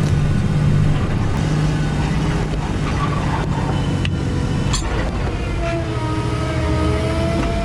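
Diesel tractor engine running steadily under load while pulling a chisel plow through a field. About two thirds of the way in, music comes in over it.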